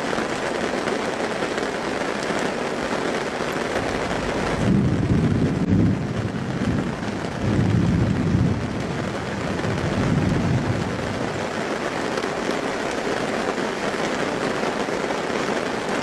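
Heavy rain falling with a steady hiss. A few low rumbles swell and fade between about five and eleven seconds in.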